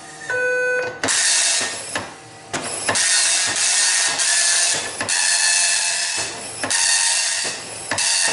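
HP 2631G dot matrix printer running its self-test, the print head printing line after line of test characters in about five loud passes of around a second each, with short breaks between lines. A short beep sounds first, under a second in.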